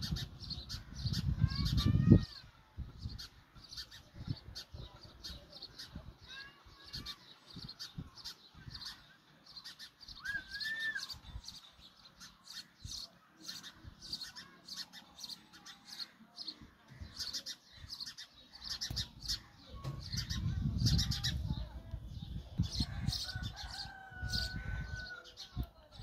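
House sparrows chirping: a fast, steady string of short, high chirps. A low rumble comes in at the start and again near the end.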